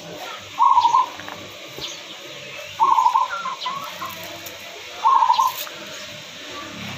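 A hen making a short, rough, rattling sound three times, about two seconds apart: the 'ngorok' snore of a chicken with a respiratory ailment.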